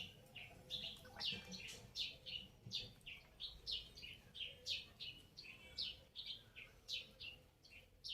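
A small bird chirping over and over: short, high chirps, each falling in pitch, about three a second, fairly faint.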